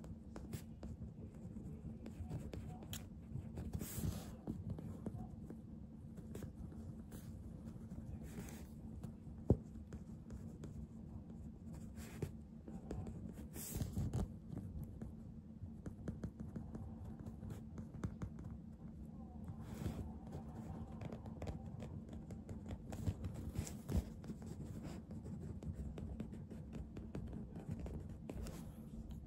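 Pen writing on a greeting card: faint scratching strokes and small ticks as a message is signed, over a low steady hum.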